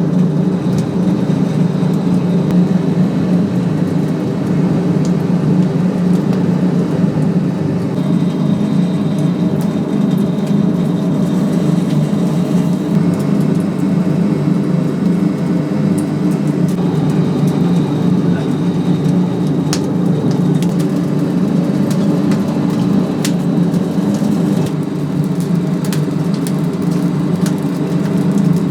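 A steady mechanical hum with a low, even pitch, holding level throughout, with a few faint sharp clicks scattered over it.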